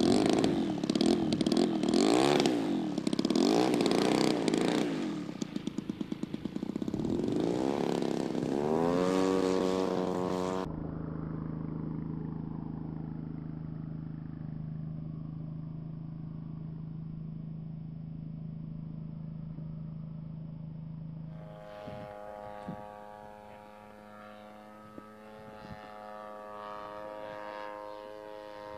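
Engine of a giant-scale radio-controlled Albatros D-Va model biplane revving up and down unsteadily, then climbing in pitch as the throttle opens for takeoff. After an abrupt cut about ten seconds in comes a steady low engine drone, and later a steadier, higher drone as the model flies.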